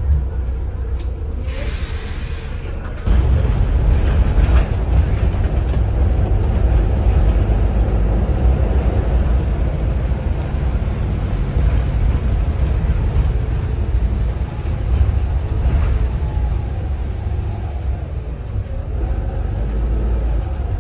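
Volvo B7RLE single-decker bus heard from inside the saloon: a low engine rumble, with a brief hiss of air about a second and a half in. About three seconds in the rumble grows louder and stays up as the engine pulls under load.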